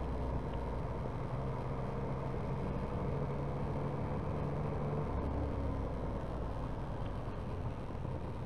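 Motorcycle engine running at low speed through town, heard from a camera mounted on the bike, with wind and road noise. The steady engine note changes about five seconds in, as the throttle eases.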